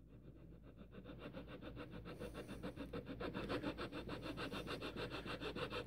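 Triangular file cutting a band groove into a carved wooden slingshot fork: a fast, even run of short rasping strokes, faint at first and growing steadily louder. These are light strokes that start the groove on its marked lines.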